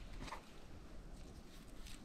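Faint rustling and crackling of dry grass strands being twisted between the fingers, with a couple of brief soft rustles.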